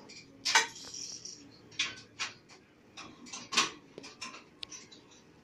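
Irregular sharp clacks and knocks from a manual rotary T-shirt screen-printing press as its metal screen frames are pushed down and lifted. The loudest clack comes about two-thirds of the way in.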